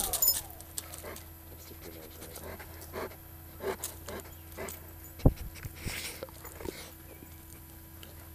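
A dog panting and sniffing close to the microphone in short, uneven puffs, with one sharp knock about five seconds in.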